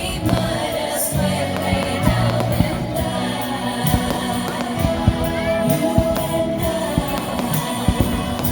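Music with a singing voice, with scattered sharp cracks through it.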